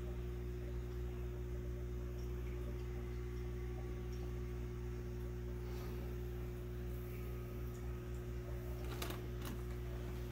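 Steady low electrical hum of running aquarium equipment, with two faint clicks about nine seconds in.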